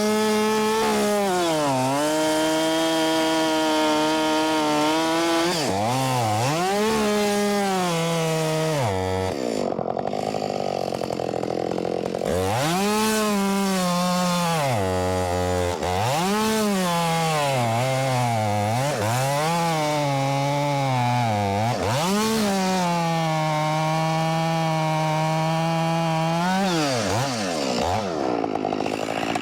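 Ported Husqvarna 572 XP two-stroke chainsaw with a full-chisel chain cutting oak, held near full throttle. Its engine pitch sags and recovers again and again as the chain bites into the wood, dropping low for a couple of seconds about ten seconds in.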